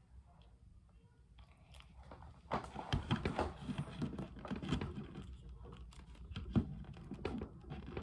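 Plastic action figures being handled and set down on a tabletop: irregular clicks, taps and rustles, starting about two and a half seconds in.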